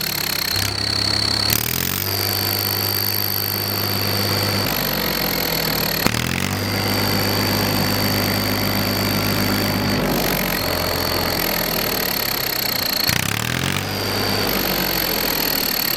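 Tractor engine running with an aftermarket turbo whistle in its exhaust giving a steady high-pitched whistle over the engine note. Three times the engine is revved briefly, each rev bringing a short rush in the whistle.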